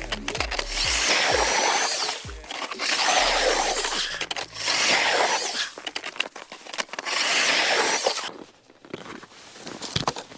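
Crinkling and tearing of a hand warmer's plastic packaging handled close to the microphone, in four loud bursts. It is quieter near the end.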